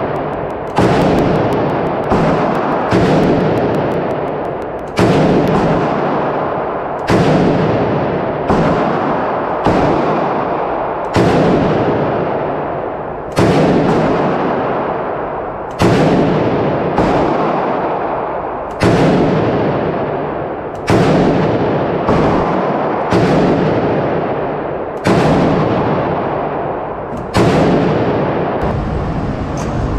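SAM7R, a Romanian milled-receiver AK-pattern rifle in 7.62×39mm, fired in single shots at a slow, steady pace, about one every one to two seconds. Each shot is followed by a long echo off the walls of an indoor range.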